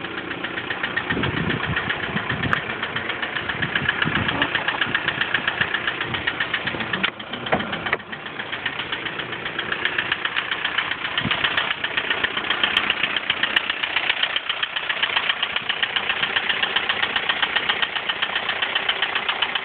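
A 1999 VW Golf TDI's 1.9-litre four-cylinder turbodiesel idling in neutral, with a fast, even ticking clatter from a slightly noisy tappet.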